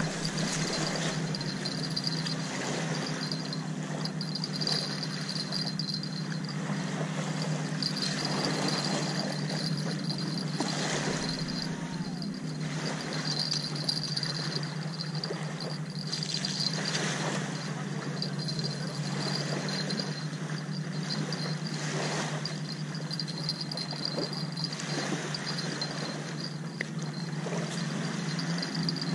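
Steady low hum of a boat engine running in the distance, with soft swells of wind or water noise.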